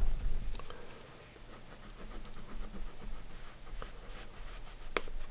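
Yellow Crayola wax crayon scribbling on paper, filling in a shape: faint, repeated rubbing strokes, with a single sharp click near the end.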